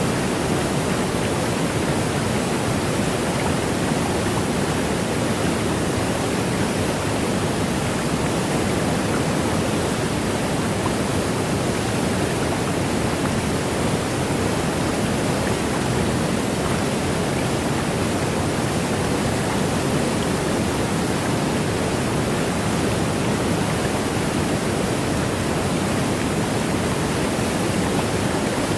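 Waterfall pouring in a steady, unbroken rush, swollen with snowmelt runoff.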